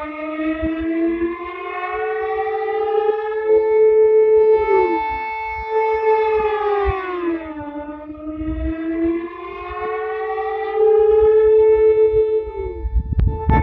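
Civil-defense warning siren wailing, played in reverse: one pitch with several overtones glides slowly up and down, dipping about eight seconds in and again near the end, with scattered low thumps underneath.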